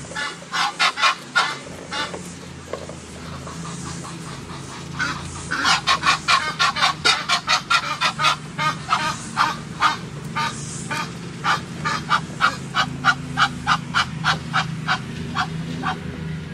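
Geese honking in rapid runs of short, harsh calls, about three to four a second: a brief spell about half a second in, then a long spell from about five seconds in until near the end.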